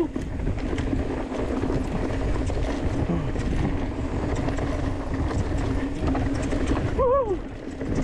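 Mountain bike descending a dry, dusty dirt trail: tyres rolling over loose dirt and the bike rattling, with wind buffeting the handlebar-mounted camera's microphone. A steady low hum runs underneath, and a short falling tone comes about seven seconds in.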